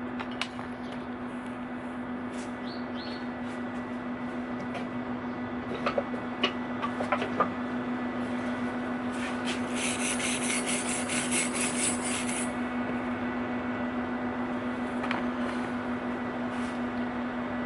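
MIG welder humming steadily, with a few sharp metal clicks about six to seven seconds in and a crackling weld arc lasting about three seconds around the middle.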